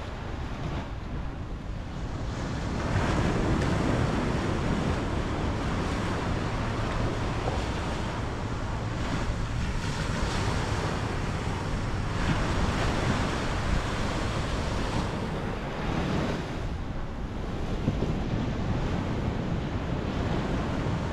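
Ocean surf washing against the shore, rising and falling every few seconds, with wind buffeting the microphone.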